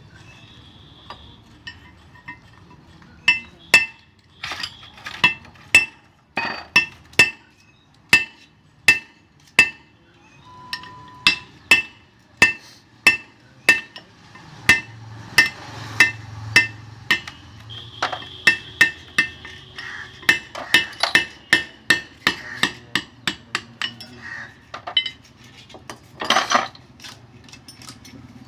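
Hammer striking metal in a long run of sharp, regular blows, roughly two a second, each with a short metallic ring.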